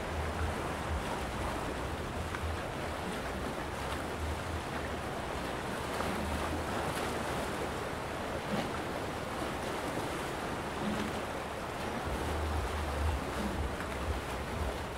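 Sea waves washing steadily against a rocky shore. Wind buffets the microphone with a low rumble, which comes and goes and is strongest near the start and again from about twelve seconds in.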